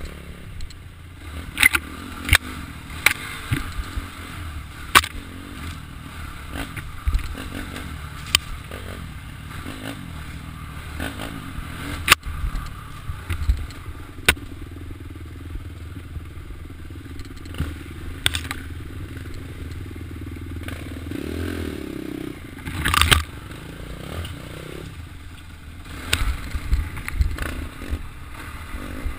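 Off-road motorcycle engine running steadily as the bike rides a rough dirt trail, with frequent sharp knocks and rattles from the bike jolting over bumps, and a brief loud rush about three-quarters of the way through.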